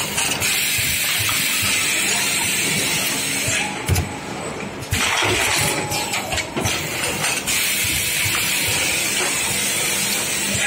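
Semi-automatic double-head cutting disc making machine running: a steady loud hiss over a low motor hum, with frequent small mechanical knocks. The hiss cuts out for about a second around four seconds in, then resumes.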